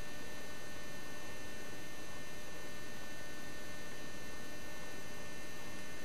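Steady electrical hum and hiss with a few faint high whining tones: room tone with no events.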